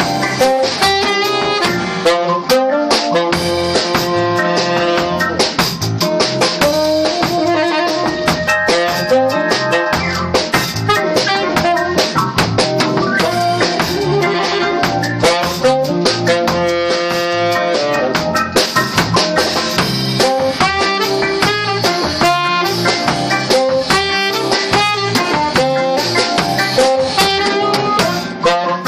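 Jazz trio playing: saxophone carrying the melody over drum kit and a Roland FR-7 digital accordion.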